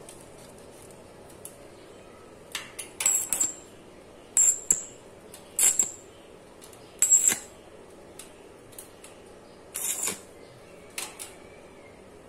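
Stick arc welder tack-welding square hollow steel pipe: about seven short spurts of arc sizzle, each under half a second, struck at uneven gaps.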